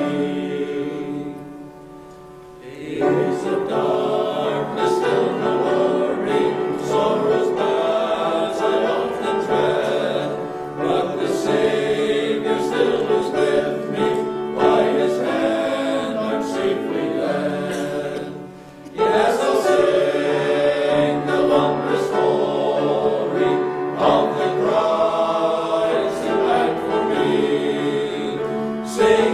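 Men's chorus singing a gospel hymn in parts, pausing briefly between phrases about two seconds in and again about eighteen seconds in.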